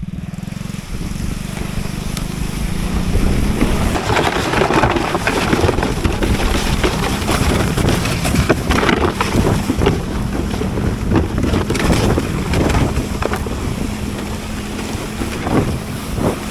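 A small off-road vehicle's engine running at a steady speed while riding, with wind rushing hard over the microphone. The sound builds over the first few seconds.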